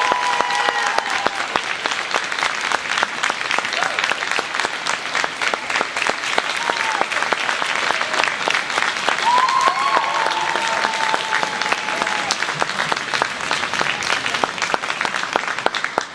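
A large audience applauding, a dense steady clatter of clapping, with a few voices calling out over it.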